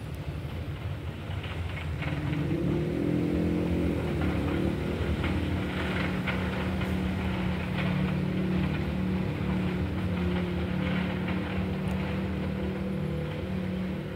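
A motor engine running steadily, its hum growing louder and settling on a steady pitch about two seconds in.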